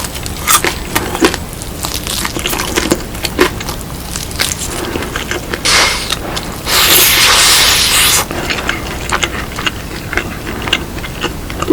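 Close-miked eating of crispy seasoned fried chicken: crunchy bites and wet chewing clicks. A loud hiss-like rustle lasts about a second and a half, a little past the middle.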